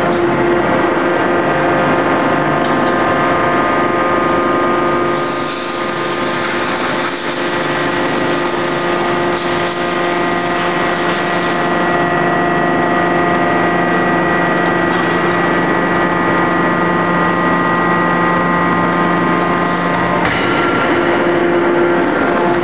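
Steady, loud hum of running machinery made of several fixed tones. There are no hammer blows, and the mix of tones changes about twenty seconds in.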